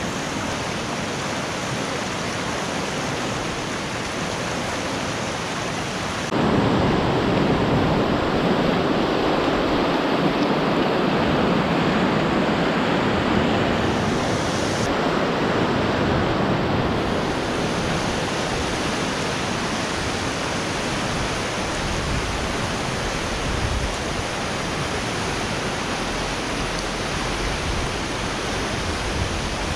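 Fast mountain river rushing over rapids and stones, a steady rush of white water. About six seconds in it grows louder and fuller, and it eases back after about seventeen seconds.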